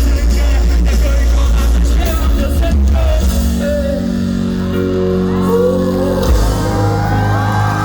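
Live song played loud through a concert PA in a large hall, with singing over it. A deep steady bass line carries the first three seconds, then held chords take over beneath a gliding vocal line.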